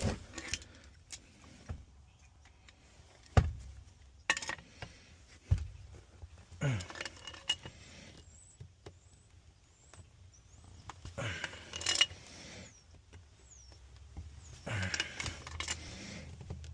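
Metal wrenches and steel gas fittings clinking, knocking and scraping as furnace gas-valve plumbing is worked on. A few sharp single knocks come first, then three longer rattling bouts a few seconds apart.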